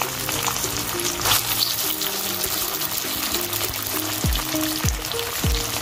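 Background music with a repeating melody; from about four seconds in, a run of deep falling notes. Under it, a steady hiss and crackle of steamed rice balls sizzling in hot oil with tempering spices in an iron kadhai.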